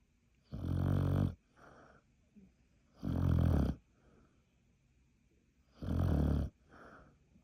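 A sleeping beagle snoring: three loud snores about every three seconds, each followed by a softer breath.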